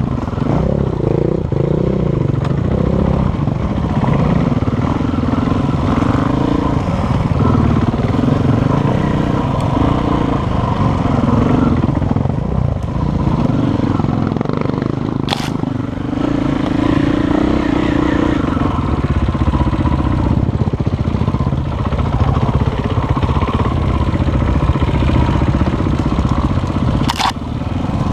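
Onboard sound of a KTM 450 EXC-F's single-cylinder four-stroke engine running, its revs rising and falling as the throttle is worked over a rough, rutted trail. The chassis clatters throughout, with a sharp knock about halfway through and another near the end.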